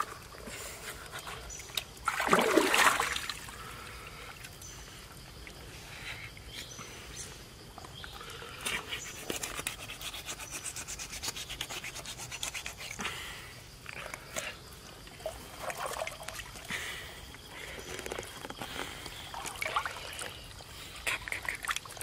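River water splashing and trickling around the carcass, with one loud splash about two seconds in. After that comes a long run of rapid scraping and rubbing as hands and a knife work at the crocodile's hide.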